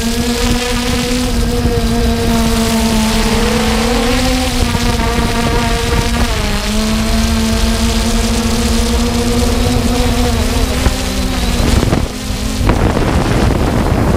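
3DR Solo quadcopter's motors and propellers whining steadily, picked up close by the camera mounted on the drone, as a stack of tones that waver slightly in pitch. The pitch dips briefly about six seconds in, and the sound breaks for a moment near twelve seconds.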